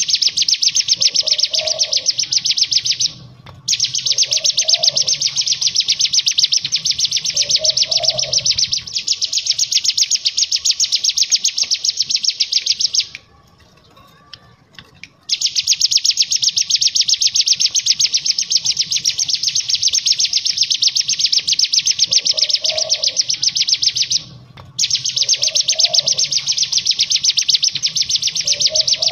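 Hill prinia (ciblek gunung) singing a long, very rapid trill, the 'ngebren' song, broken by short pauses about three seconds in, for two seconds about halfway through, and again near the end.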